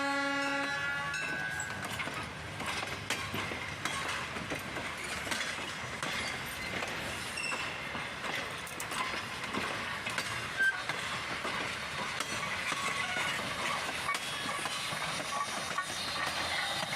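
Steam locomotive Jeddo Coal No. 85, a 0-4-0 tank engine, ends a whistle blast in the first second, then runs past with a steady train noise of wheels on rails and many sharp clicks.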